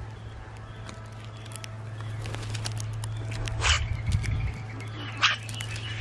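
Common grackles at a seed feeder: two short, harsh, grating calls about a second and a half apart, with a faint squeaky whistle between them, over scattered light clicks and a steady low hum.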